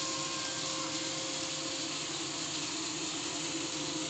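Ferroli Diva wall-mounted gas boiler firing at full output in hot-water mode, its fan and burner making a steady rushing noise, mixed with a hot tap running into a steel sink. The level stays even throughout.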